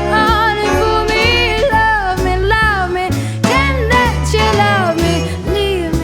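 Music: a song with a sung melody over bass and a steady beat.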